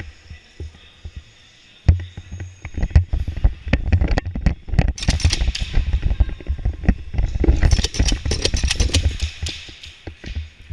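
Airsoft gunfire in rapid bursts of sharp clacks, with knocks and clatter. It starts about two seconds in, and the densest flurries come in the middle and again near the end.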